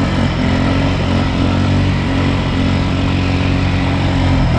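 ATV engine running at a steady, even pitch.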